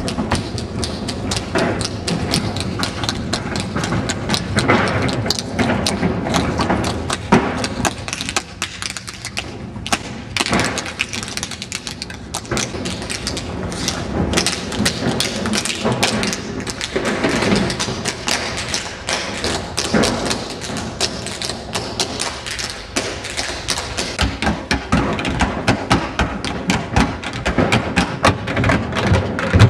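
Tap shoes striking a hard floor in fast rhythmic patterns, several dancers tapping together with no music.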